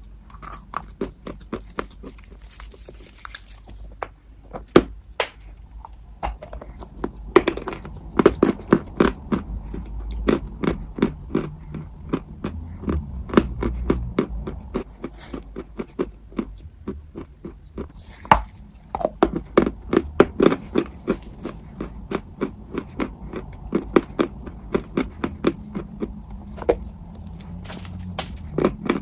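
Close-miked crunching and chewing of a hard, brittle food: rapid, crisp cracks and crackles in quick succession, thinning out briefly about two-thirds of the way through.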